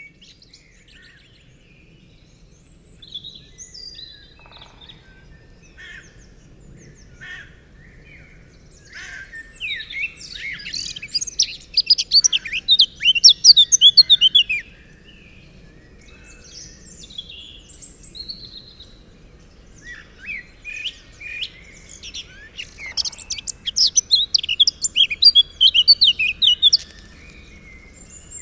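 Birds singing and calling: scattered single chirps, then two long bouts of rapid, trilling song, the first about nine seconds in and the second about twenty seconds in.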